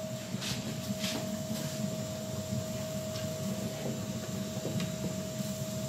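A steady low hum with one constant mid-pitched tone running through it, and a few faint taps about half a second apart in the first couple of seconds.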